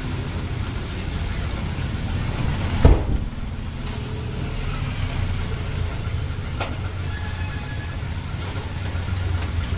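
Penne being mixed into meat sauce in a metal wok: a sharp knock of a utensil against the wok about three seconds in and a lighter one about six and a half seconds in, over a steady low rumble.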